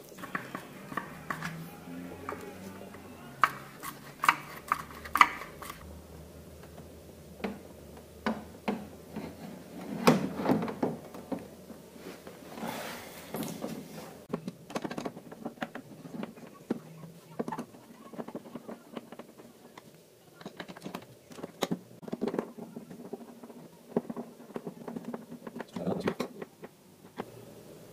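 Scattered clicks, knocks and light metallic clinks of a metal TV stand and screws being handled and fitted to the plastic back of a flat-screen TV, some from a Phillips screwdriver.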